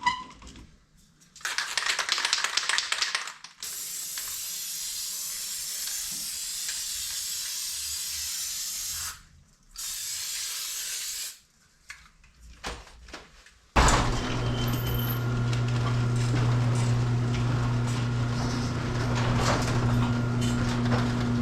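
Aerosol lubricant sprayed onto a garage door's spring in three bursts, the middle one a steady hiss of about five seconds. About fourteen seconds in, a garage door opener motor starts and runs with a steady hum as the door moves.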